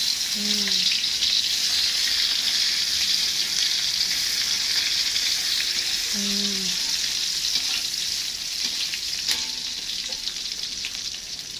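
Spice paste (bumbu) frying in hot oil in a pan, a loud steady sizzle that eases slightly toward the end.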